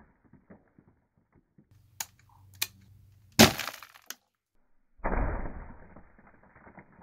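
Two sharp clicks, then about three and a half seconds in a sharp CO2 shot from a T4E HDS 68 .68-calibre shotgun, its ball striking and cracking a glass pane, ringing briefly. About five seconds in comes a deeper, muffled crash of shot and glass that crackles as it fades: the impact slowed down.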